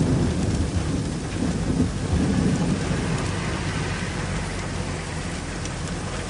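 Heavy rain pouring down in a storm, a dense steady hiss, with a low rumble that swells near the start and again about two seconds in, then eases.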